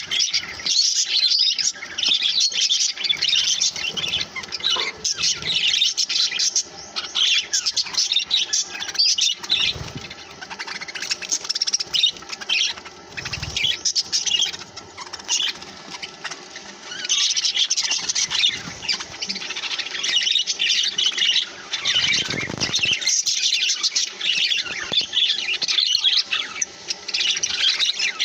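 A group of budgerigars chattering and chirping over one another in a constant, high-pitched warble with occasional squawks, easing off for a few seconds partway through. A few soft low thuds come in among the chatter.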